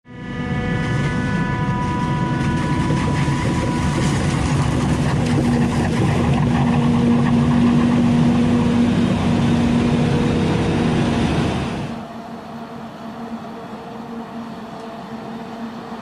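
Claas Jaguar 990 forage harvester with its Orbis maize header cutting standing maize close by: loud, steady machine noise with a high whine. About twelve seconds in the sound drops sharply to a quieter, steady machine hum.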